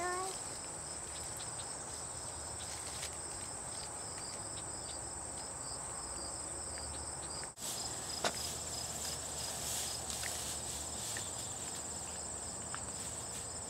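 Summer insect chorus: a steady high-pitched trill with a faster pulsing layer under it, dropping out for an instant about halfway through. A few faint clicks and rustles of leaves and grass sound over it.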